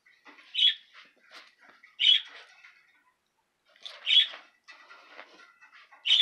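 Small dogs play-fighting, one letting out short, high-pitched squeaky yelps, four loud ones about every two seconds, with light scuffling on the bedding in between.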